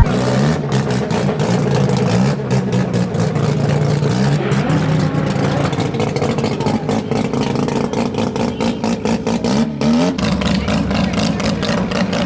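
Car engine revving and accelerating, its pitch climbing several times as it pulls through the revs.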